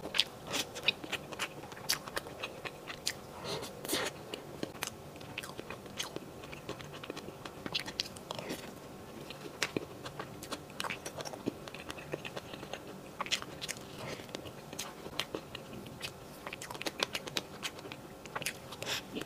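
Close-miked mouth sounds of eating soft cream sponge cake with a berry filling: irregular chewing with many small wet clicks and smacks.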